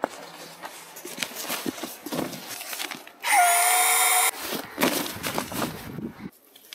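Rustling and crinkling of bedding and tent fabric being handled. About three seconds in, a small electric motor whirs loudly for about a second, rising briefly in pitch as it spins up, then cuts off abruptly.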